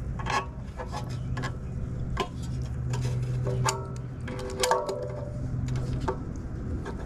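Metal clicks and clinks of pliers gripping and turning the bolts on an air-conditioner condenser fan blade's hub as they are tightened against the flats of the motor spindle, about seven separate clicks, some ringing on briefly. A steady low hum runs underneath.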